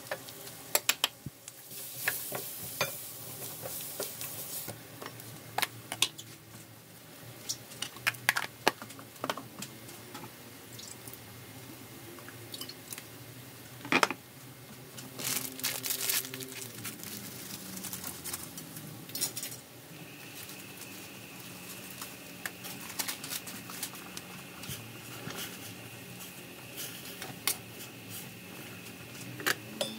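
Sliced garlic and onion cooking in a little liquid in a stainless-steel frying pan, with many scattered small pops and crackles and one louder click about halfway through. A faint steady high tone comes in about two-thirds of the way through.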